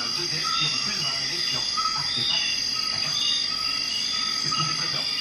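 Background music: a soft, repeating electronic pattern of short notes over sustained high tones.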